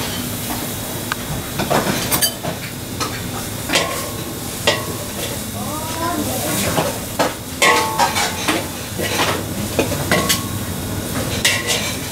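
Stir-frying rice vermicelli and cabbage in a wok: a steady sizzle, broken by repeated scrapes and knocks of a metal spatula against the wok as the noodles are tossed.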